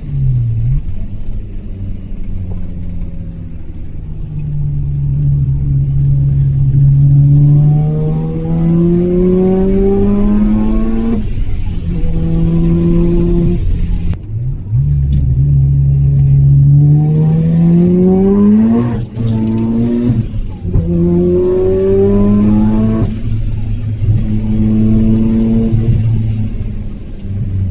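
Mazda RX-7 FD3S rotary engine accelerating hard under load, its pitch climbing and then dropping sharply at each upshift, about five times. A faint high whine rises with the revs on each pull.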